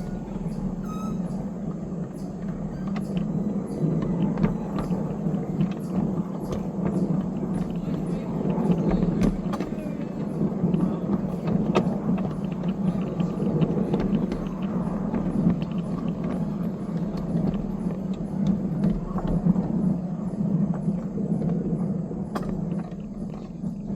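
A small railroad train running along the track with a steady engine drone and scattered clicks and knocks.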